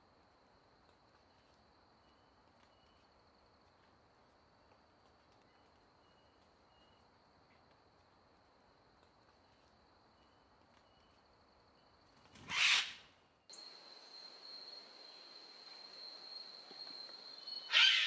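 A steady high-pitched drone with faint short chirps, then a loud animal call about twelve and a half seconds in. The drone becomes much louder about a second later, and a second loud call comes at the end.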